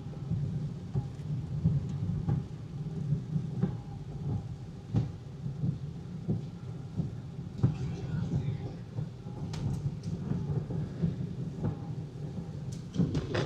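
Heard from inside a moving car in heavy rain: a steady low drone of road and engine noise, with rain pattering irregularly on the roof and windscreen.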